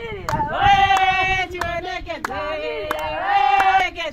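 A group of women singing a Shona song together over steady hand clapping. The voices hold a long loud note about half a second in and again just past three seconds.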